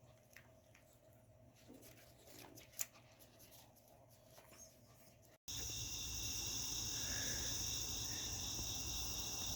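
Near silence with a few faint ticks, then after an abrupt cut about halfway through, a steady outdoor chorus of insects holding several even high-pitched tones.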